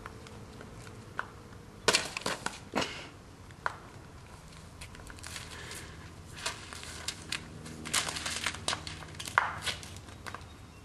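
Paper notes crunching and crinkling in scattered sharp crackles, thickest in the second half, over a low steady hum.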